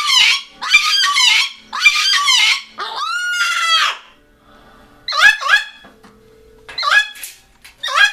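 Moluccan cockatoo screaming: a run of loud, harsh calls about half a second each, then a longer drawn-out call, a pause of about a second, and more short calls near the end.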